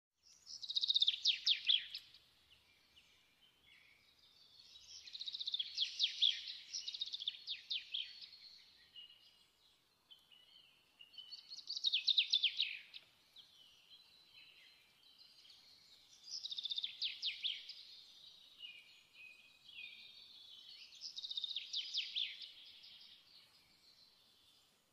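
A songbird singing: phrases of rapid high notes, each one to three seconds long, repeated about every five seconds.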